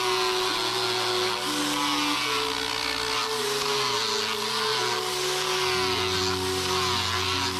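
Electric angle grinder with a sanding disc grinding into a wooden knife handle: a loud, steady whine and rasp whose pitch wavers as the disc is pressed in and eased off. Background music plays underneath.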